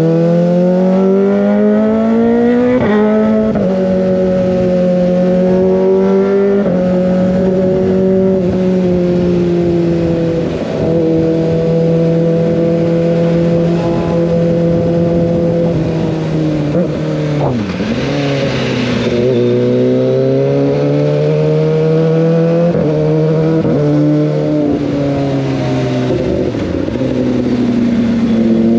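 Kawasaki ZX25R's 250 cc inline-four engine through an Over Racing GP-RS full-system exhaust while riding. It revs up and drops sharply on an upshift about three seconds in, then runs at a steady speed for a long stretch. The revs fall away, then climb again with two more quick upshifts in the last third.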